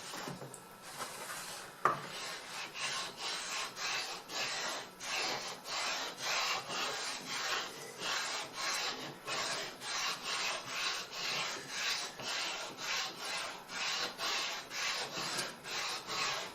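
Japanese waterstone being rubbed wet against a flattening stone in a circular motion, a gritty stone-on-stone rasp repeating at about two to three strokes a second, to dress the waterstone flat. A single sharp knock comes about two seconds in.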